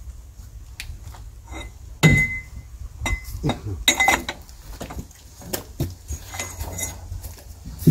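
Metal clinks and knocks from a bar being worked on a screw-type cylinder-liner puller set on a tractor diesel block, with one sharp, ringing clink about two seconds in.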